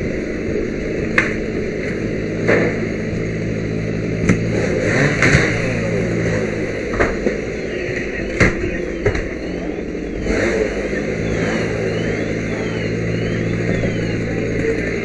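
A steady engine drone runs under irregular sharp knocks and clatter, about seven strikes in the first ten seconds, typical of firefighting tools striking during interior work. Near the end a faint tone sweeps up and down several times.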